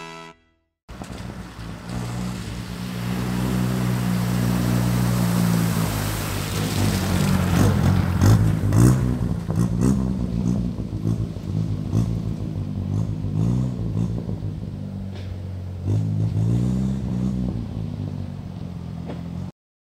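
Austin Seven's small four-cylinder side-valve engine running, first on a steady note, then revving with rising and falling pitch and a few sharp clicks about seven seconds in; it picks up again near the end and cuts off suddenly.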